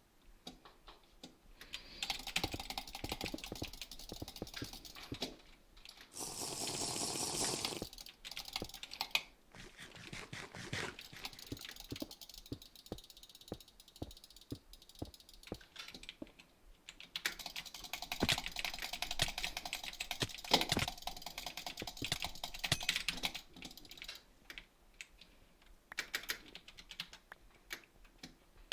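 Typing on a computer keyboard: quick runs of key clicks with sparser single clicks and short pauses between them. About six seconds in, a steady hiss-like noise lasts about two seconds.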